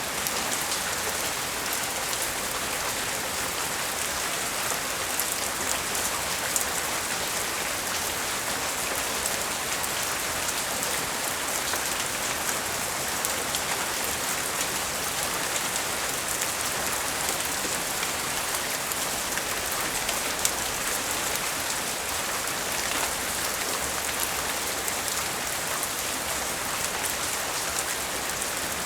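Steady rain falling and pattering on surfaces, with many small drop ticks.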